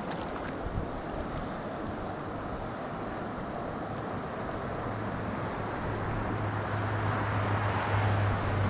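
Rushing current of a high, fast-flowing mountain trout river, a steady wash of water that grows louder toward the end. A low steady hum joins about halfway through.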